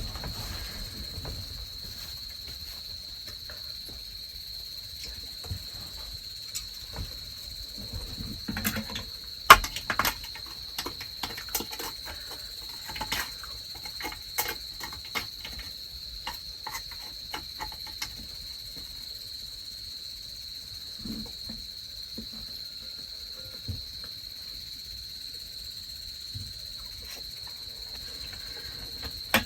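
Crickets chirping in one steady, high, unbroken band. Scattered light clicks and knocks come through the middle stretch, with one sharper knock about ten seconds in.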